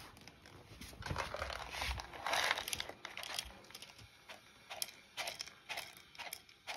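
Dry cat kibble rustling and rattling as it is poured into a bowl, about one to three seconds in, followed by a few scattered light clicks.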